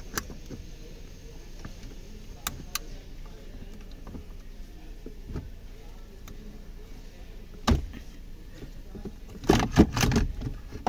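Scattered sharp clicks and light knocks of plastic dashboard trim and wiring connectors being handled inside a car's centre console, with a louder burst of rattling and knocking near the end.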